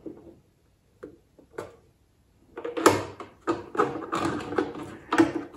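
Plastic model-kit deck being handled and pressed down onto the hull: a couple of light clicks, then from about halfway in a run of knocking and scraping of plastic parts under the hands.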